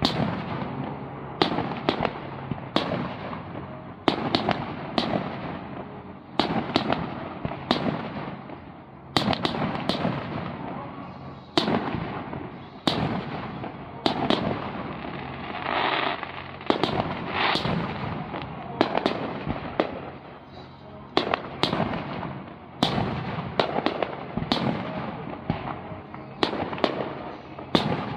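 Aerial firework shells bursting one after another, each sharp bang echoing away, about one a second with some in quick clusters.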